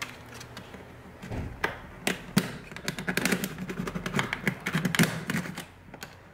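Pry tool working around the plastic case of a Texas Instruments TI-Nspire CX calculator: a rapid run of clicks, taps and scrapes as the case's plastic clips are forced loose. It starts about a second in, is busiest in the middle and thins out near the end.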